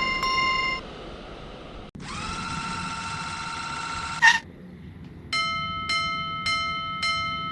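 Japanese railroad crossing warning bells. One crossing's bell fades out about a second in, a steady ringing tone follows for about two seconds, and from about five seconds in another crossing bell strikes about twice a second.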